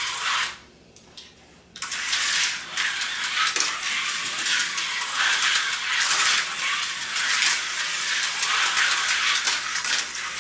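Tyco HO slot cars running around a plastic track, a fast, rattling whir of the small motors and wheels. It stops briefly about half a second in and resumes just before two seconds in.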